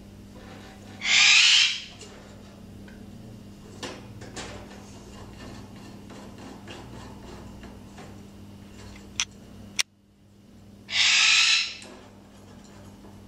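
Green-cheeked conure giving two harsh, raspy squawks, one about a second in and another about ten seconds later, each lasting under a second.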